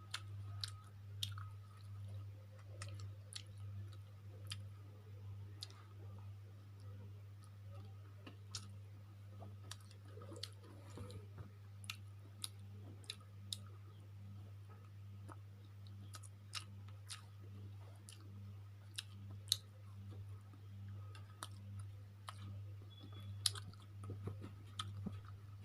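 A person chewing a mouthful of chicken chow mein, with irregular sharp mouth clicks and smacks, over a steady low hum.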